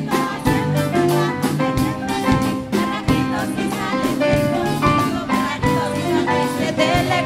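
Live band playing an instrumental passage: drums keep a regular beat under bass and held melody notes.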